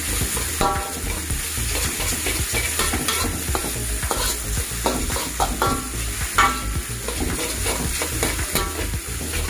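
Instant noodles and egg sizzling in hot oil in a wok while a metal spatula stirs and scrapes them around. Repeated short scrapes of the spatula against the wok ring briefly over the steady sizzle.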